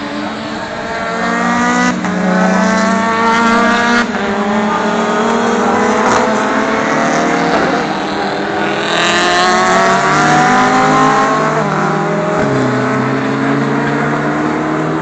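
Race car engines accelerating hard, the pitch climbing in steps about every two seconds as they upshift. In the last few seconds a lower, steadier engine note takes over.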